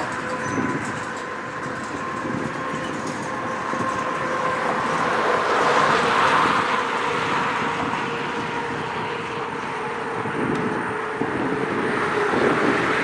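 A train rolling past with a steady rumble of wheels on the rails, over a faint high steady whine that slowly drops in pitch.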